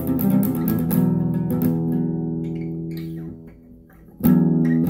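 Guitar playing strummed chords that ring on and die away to a brief lull about three and a half seconds in, then one loud chord strummed and left ringing.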